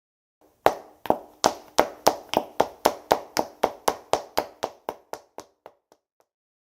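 Running footsteps in hard-soled leather dress shoes: a fast, even series of sharp heel-and-sole strikes, about three or four a second, starting about half a second in and growing fainter until they die away near the end.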